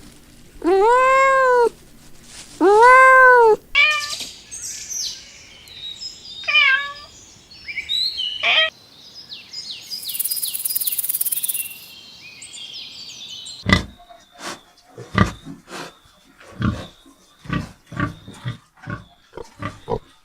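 A cat meowing twice, each meow a long call that rises and falls in pitch. Shorter, higher squeaky calls follow. From about 14 seconds in, a run of short rough grunts repeats a little more than once a second.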